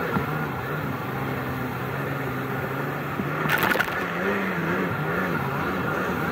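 Kawasaki SXi Pro jet ski's two-stroke engine running steadily on the water, with a short loud splash of water about three and a half seconds in as the ski leans hard over. After that the engine pitch wavers up and down.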